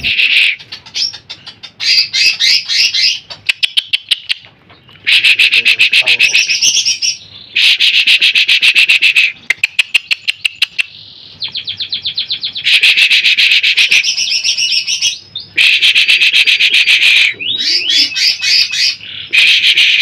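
Cucak ijo (greater green leafbird) singing loudly in a string of fast, chattering phrases of one to two seconds each, with short pauses between them.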